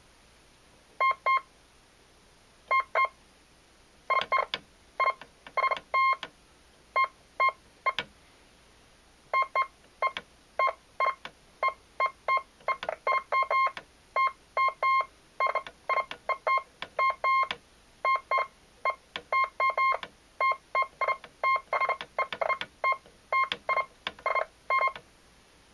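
Morse code sidetone from a Heathkit HD-10 electronic keyer, keyed by a Bunnell Gold Bug semi-automatic telegraph key: a high, buzzy beep in irregular short and long pulses. A few scattered characters come first, then a fast, dense run of dots and dashes.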